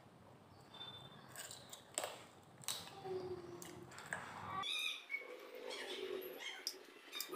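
Close-miked mouth sounds of eating chicken and rice by hand: wet clicks, smacks and chewing, with a few short high chirps among them.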